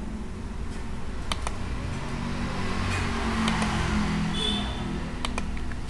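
Computer mouse clicks and keystrokes: a handful of sharp, separate clicks over a steady low room hum.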